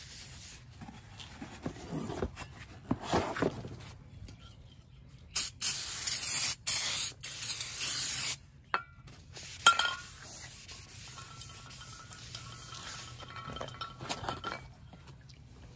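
Aerosol brake parts cleaner hissing onto a new brake rotor in several bursts of spray lasting about three seconds, starting about five seconds in, to clean the rotor's factory coating. Before that, a rag rubs over the rotor's surface.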